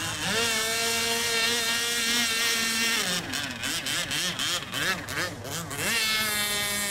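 Radio-controlled speedboat's engine running at high revs, holding one steady pitch. Between about three and six seconds in the pitch wavers up and down, then it steadies again.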